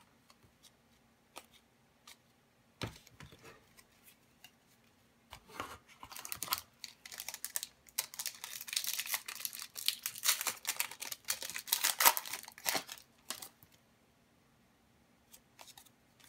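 Trading cards handled with a few light clicks, then, about six seconds in, a foil hockey card pack torn open and its wrapper crinkled for about seven seconds.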